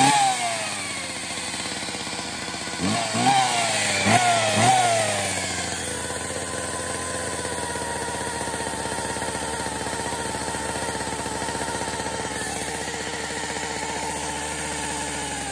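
Poulan 2150 two-stroke chainsaw running: a few quick throttle blips in the first five seconds, then settling into a steady idle with a high whine, which the owner puts down to a shot clutch.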